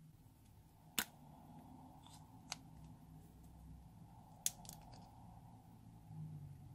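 Four sharp, short clicks, spaced unevenly, from handling a metal lipstick tube and a plastic spatula while lipstick is scooped out of the tube, over a faint steady hum.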